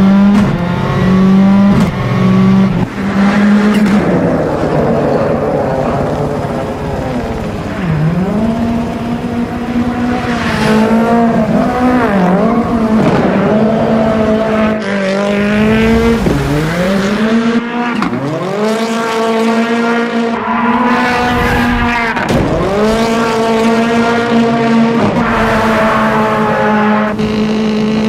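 Rally car's engine driven hard while drifting: the engine note holds steady at first, then over and over drops off and climbs back up every second or two as the throttle is lifted and reapplied, with tyres squealing.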